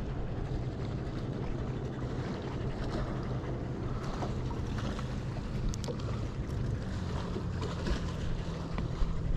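Steady wind rumbling on the microphone over a low hum, with a few light clicks and taps in the second half.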